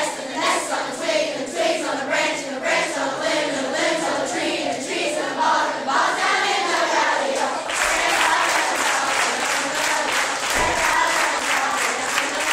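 A large group of schoolchildren singing together while clapping a steady beat. About eight seconds in, the clapping and voices grow louder and busier.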